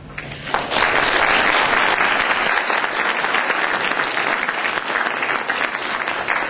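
Lecture audience applauding in a hall, the clapping starting about half a second in, fullest over the next two seconds and then easing off a little.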